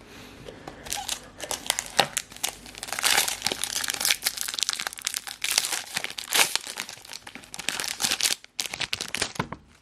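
Foil Pokémon booster-pack wrapper crinkling and crackling as it is handled and torn open, a dense, irregular run of crackles that briefly pauses near the end.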